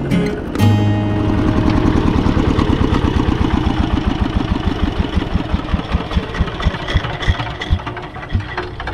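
Diesel engine of a two-wheel hand tractor running with a steady rapid chugging beat. The beat thins out and grows a little quieter in the last few seconds, as the engine eases off.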